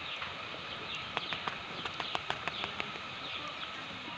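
Small birds chirping over a steady background hiss. An uneven run of about ten sharp clicks or taps comes between one and three seconds in.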